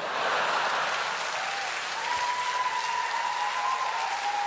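Studio audience applauding after a punchline.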